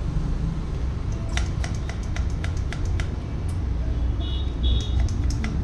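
A quick run of sharp clicks, about eight in a second and a half, then a few more near the end, over a steady low rumble.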